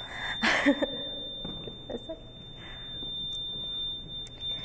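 A pause in a talk: room tone with a faint steady high-pitched whine, and a short breathy vocal sound about half a second in.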